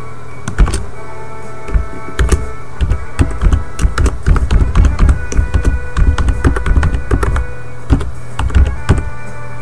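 Computer keyboard being typed on, an email address entered in quick irregular runs of key clicks. Background music with sustained tones plays underneath.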